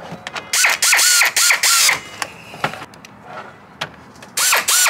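Ratchet and socket tightening the radiator fan shroud bolts: a run of short bursts of rapid clicking in the first two seconds, a pause, then two more bursts near the end.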